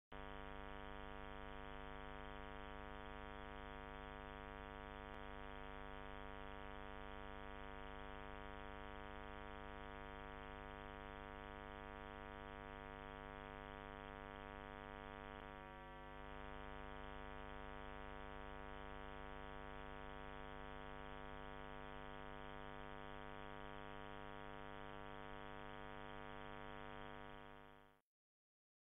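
A steady, faint electrical-sounding hum made of several fixed tones, with a short dip about halfway through, fading out near the end.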